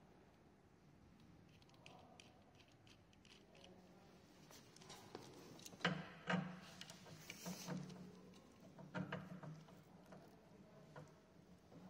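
Faint clicks and metal knocks as a bicycle pedal is fitted to an exercise bike's crank arm and turned with a wrench. The loudest are two sharp clicks about halfway through.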